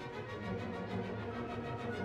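Music: sustained instrumental notes over a changing bass line.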